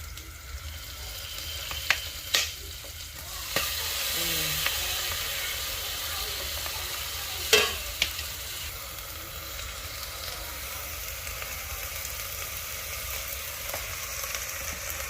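Food frying in hot oil in a pan with a steady sizzle that swells a few seconds in. A handful of sharp knocks, most likely a utensil stirring against the pan, sound near 2, 2.5, 3.5, 7.5 and 8 seconds.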